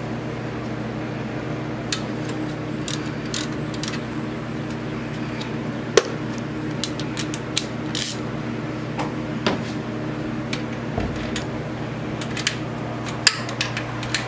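Scattered clicks and metallic clinks of hand tools working on parts in a car engine bay, the sharpest knock about six seconds in and a cluster near the end, over a steady electric hum.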